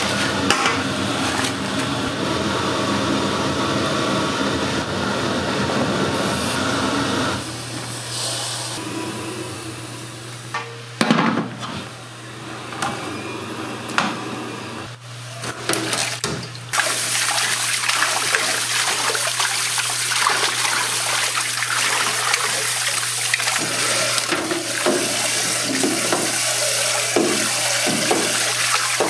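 Water running hard from a kitchen tap, switched on suddenly about two-thirds of the way through, over a steady low hum. Before that there are a few sharp knocks and clatters of kitchen work.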